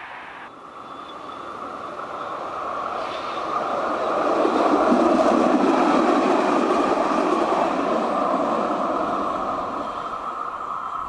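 Tram passing by: the rushing wheel-on-rail and running noise builds, is loudest about halfway through, then slowly fades as it moves away.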